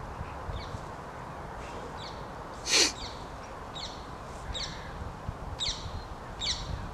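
Small birds singing: a series of short, high chirps, each falling in pitch, repeated every half second to a second. One louder, short sound comes about three seconds in, over a steady low background rumble.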